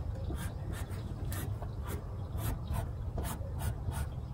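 Felt-tip marker drawing on painter's tape stuck over a car's steel rear fender, a run of short, irregular scratchy strokes as cut lines are marked out. A steady low hum sits underneath.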